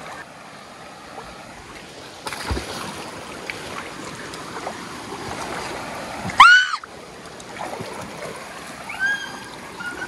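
Wading and splashing through a shallow mountain stream over steady rushing water. About six and a half seconds in, a dog gives one loud, high whine that rises and falls, and a fainter one follows near the end.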